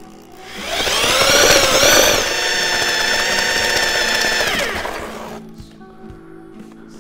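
Electric mixer spinning a drywall mud-mixing paddle through thick refractory slurry in a plastic tub. It winds up about half a second in and wavers for a second or so as the paddle bites into the mix. It then runs steadily and winds down to a stop about five seconds in.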